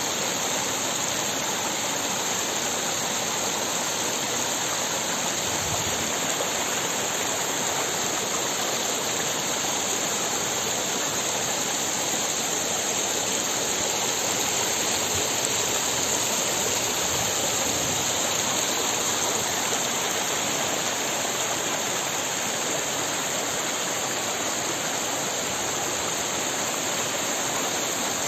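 Shallow mountain stream running over rocks in small cascades: a steady, even rush of water.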